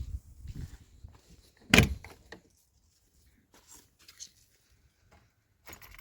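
Scattered knocks and rustles with one loud, sharp thump a little under two seconds in and a shorter knock near the end.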